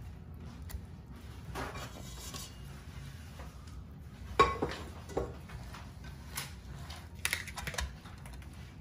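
A spatula working sticky marshmallow-coated rice cereal into a glass baking dish, with soft scraping and scattered knocks and clinks against the glass. The sharpest knock comes about four and a half seconds in, and a few quick ones come near the end.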